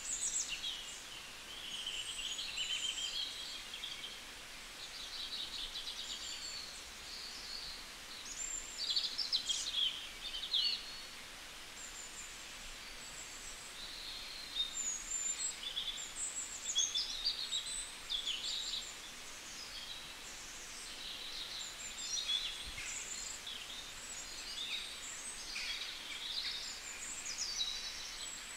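Several birds singing and chirping: many short, high twittering calls and trills, coming in clusters, over a faint steady hiss.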